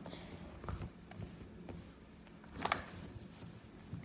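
Faint handling sounds: a few light knocks and clicks, the sharpest one a little after halfway.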